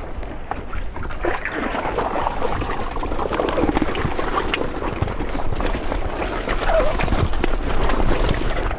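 Fishing keepnet being lifted out of a pond, water sloshing and trickling off the mesh, over a low wind rumble on the microphone.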